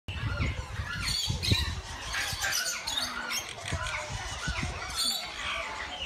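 Many aviary birds calling at once: short, high chirps and squawks that overlap, over a low, uneven rumble.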